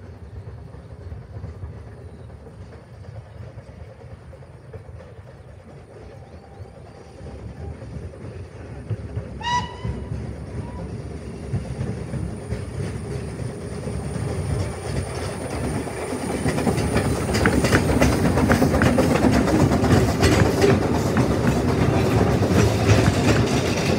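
Narrow-gauge steam locomotive approaching with a passenger train: one short whistle blast about ten seconds in, then the running sound of the engine and its carriages grows louder as the train draws level and passes close by.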